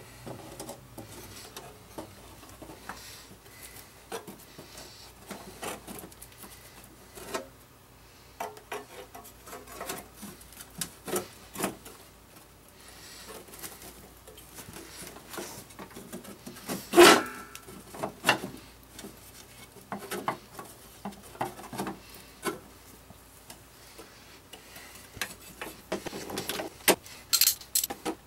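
Hands fitting a mower's drive-belt cover back under the deck: scattered clicks, scrapes and rubbing of the cover against the deck. One loud knock comes a little past halfway, and a quick run of small metal clicks follows near the end.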